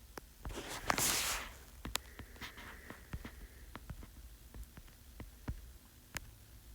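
Irregular sharp clicks, more than a dozen, with a short hissing rustle about a second in, over a faint low hum.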